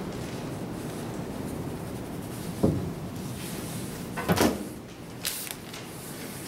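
Electrical plug and cords being handled and pushed into an extension cord's socket: a sharp clunk about two and a half seconds in and a double clatter a couple of seconds later, over a steady low hum.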